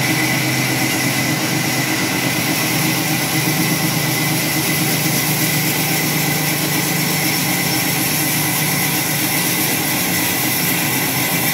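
Sawmill machinery running steadily, a constant hum with several steady low tones and a high, even whine over a wash of noise.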